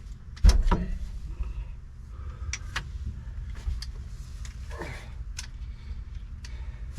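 Clunks, clicks and scrapes of a 1973 GMC C25 pickup's steering column being worked out of the cab, with one loud knock about half a second in.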